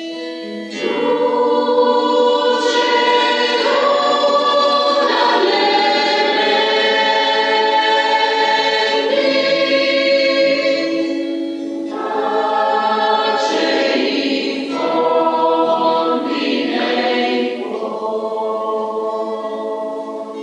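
Mixed choir of men's and women's voices singing in harmony, with acoustic guitar accompaniment. The singing holds long notes and changes chord every second or so.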